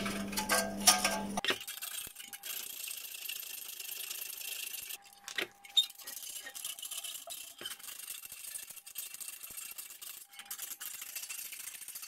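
Faint handling sounds as a heater's connector block is worked into the cut-out in its metal housing: a few light clicks and taps, mostly in the first second and a half, with one more click about halfway through and a low hiss in between.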